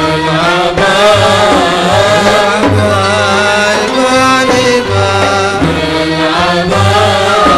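Middle Eastern music played by a violin section with oud, over a steady drum rhythm.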